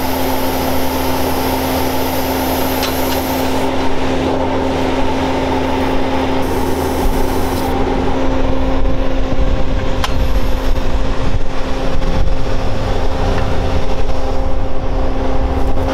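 Skid steer engine running steadily under hydraulic load, with a constant droning hum and a few faint knocks.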